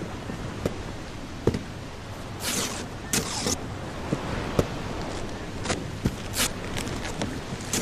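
Cardboard boxes of lamps being set down and opened by hand: scattered light knocks and clicks, with a few brief scraping rustles of cardboard about two and a half, three and a half and six and a half seconds in, over a low steady hiss.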